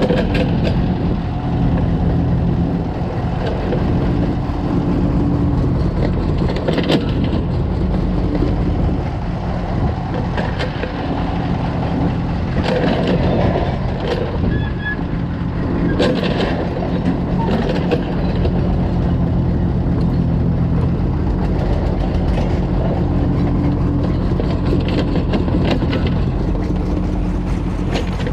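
Kobelco excavator's diesel engine running steadily under working load, with a few sharp clanks about halfway through as it digs and loads soil.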